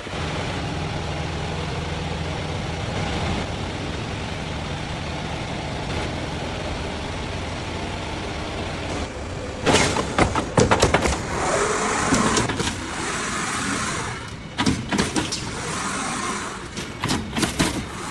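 Roll forming machine for galvanized steel shelving panels running with a steady hum; about ten seconds in, bursts of rapid metal clanking and banging begin and come again in clusters near the end as the steel is worked.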